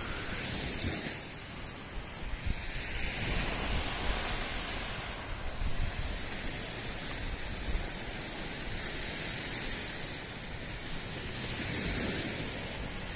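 Small surf waves washing up on a sand beach, the wash swelling a few seconds in and again near the end, with wind gusting on the microphone.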